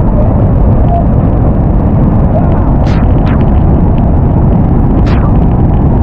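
Victoria Falls' steady, deep roar of falling water, loud and unbroken, with a couple of brief higher hisses about three and five seconds in.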